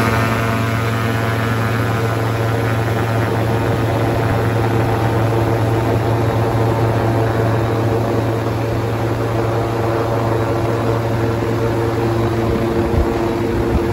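Light aircraft's propeller engine running steadily at takeoff power during the takeoff roll, heard from inside the cockpit.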